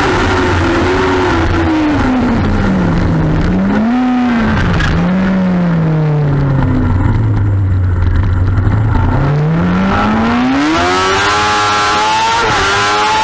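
Onboard sound of a 2007 Kawasaki ZX-6R's 600 cc inline-four racing engine: the revs drop in steps with short throttle blips as it slows for a tight coned section, hold a low note for about two seconds, then climb hard again, with a shift about a second before the end.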